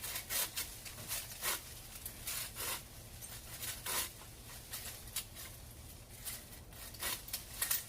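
Handling noise: irregular rustling and scraping with sharp clicks and knocks, at no steady rhythm.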